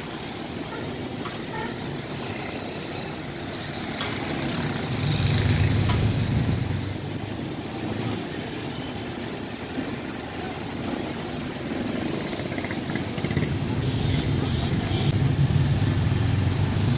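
Busy street traffic: engines of auto-rickshaws, motorcycles and cars running close by, a steady mix of motor noise. A low engine rumble swells about a third of the way in and again near the end as vehicles pass close.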